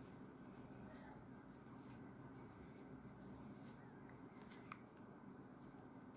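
Near silence, with faint soft rustles and small clicks of a crochet hook drawing yarn through loops while a puff stitch is worked; one slightly louder click comes a little under five seconds in.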